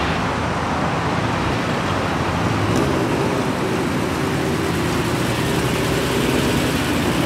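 First-generation Honda NSX's V6 engine running as the car pulls out and drives slowly past. The engine note grows a little louder in the second half.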